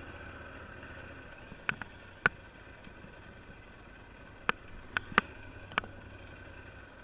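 Motorcycle engine running steadily at low speed, with about seven sharp knocks and clicks, a few near two seconds in and more around the fifth second, as the bike rolls over rough, uneven ground.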